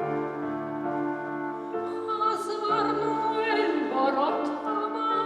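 Klezmer ensemble playing a slow piece: a female voice singing with vibrato over held chords from the accompanying instruments.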